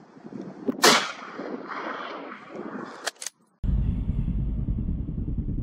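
A single loud rifle shot about a second in, trailing off, then two shorter sharp cracks about three seconds in. After a brief drop-out, a steady low rumble follows.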